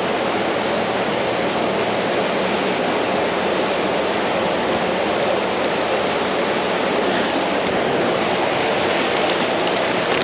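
Creek water rushing steadily over rocks, close and loud.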